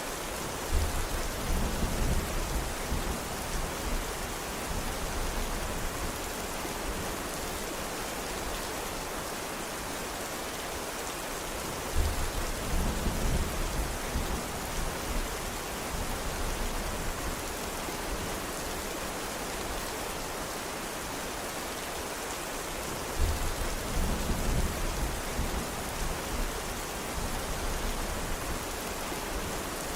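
Steady rain with low thunder rolling in three times, each roll starting suddenly and fading over a few seconds.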